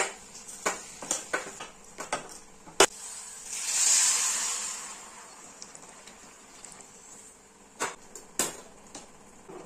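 A metal spatula stirring rice, dal and vegetables in an aluminium pot, scraping and knocking against the pot with one sharp knock near three seconds. About four seconds in, water is poured into the pot for a second or two. Two more knocks come near the end.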